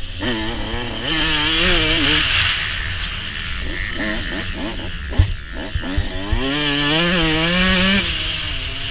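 149cc two-stroke Suzuki RM motocross bike engine revving up and down as it is ridden through turns, heard from a helmet-mounted camera with wind buffeting the microphone. A sharp thump comes about five seconds in. Near the end a long rev climbs and then cuts off suddenly as the throttle is closed.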